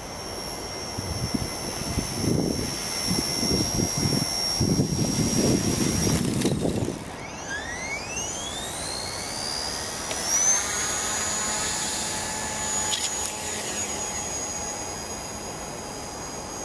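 XK K120 micro RC helicopter's brushless motor and rotor whining steadily, with gusty low rumble under it. About seven seconds in, the sound breaks off and the motor spools up in idle-up mode, a whine rising in pitch over a few seconds that then holds at a steady high pitch.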